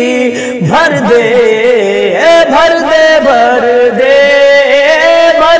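A man singing an Urdu naat, drawing out a long ornamented phrase whose pitch glides and wavers, with notes held for a second or more.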